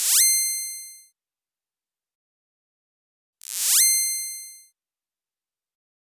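'Razor sharp rocket' sound effect played twice: a quick rising swish that ends in a bright metallic ring and fades within about a second. The first plays at the start and the second about three and a half seconds in.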